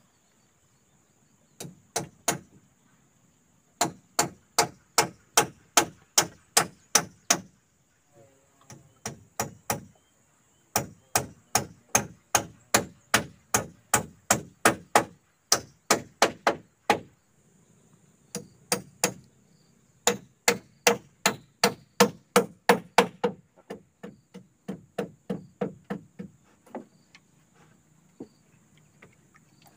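A hand tool striking wood in quick runs of blows, about three a second, with short pauses between the runs.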